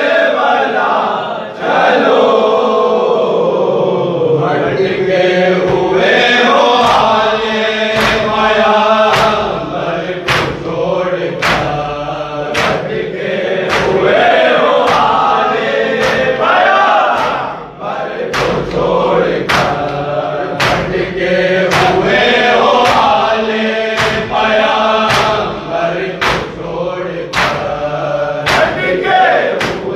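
Men chanting a Shia noha together in a group. From about seven seconds in it is accompanied by sharp, regular matam strikes, hands beating on chests in time, about one and a half strikes a second.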